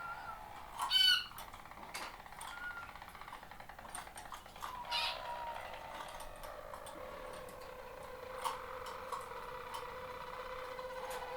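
Harzer Roller canaries singing, with long, low, steady rolling tones. A louder, sharper call comes about a second in and again about five seconds in.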